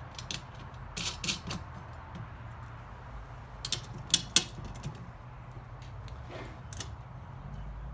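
Irregular metallic clicks and taps as bolts are fitted and tightened through a wheelbarrow's metal leg brace and legs, with two sharper clicks a little past four seconds in.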